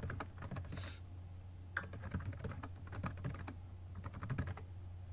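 Typing on a computer keyboard: quick key clicks in short runs with brief pauses, over a steady low hum.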